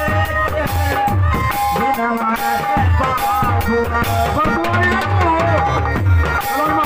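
Live folk music for a nach stage show: a hand drum keeps a steady deep beat under held keyboard notes while a voice sings a winding melody through the microphone.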